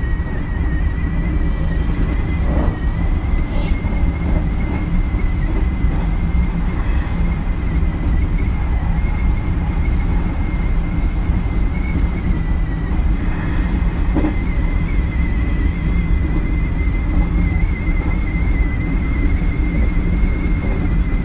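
Hanshin 9000-series electric train running, heard from inside the passenger car: a steady low rumble of wheels on rail with a constant high-pitched whine over it.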